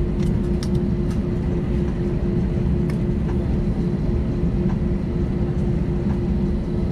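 Airbus A320 cabin noise on the ground before takeoff: a steady low rumble with a steady hum from the aircraft at engine idle, and a few light clicks in the first second and again around three seconds in.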